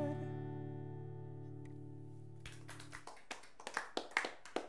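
The final strummed chord of a steel-string acoustic guitar rings and fades for about three seconds, then stops. A small audience then begins clapping, sparse and uneven at first.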